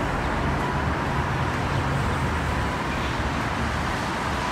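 Steady outdoor city road-traffic noise: an even hiss with a low rumble underneath.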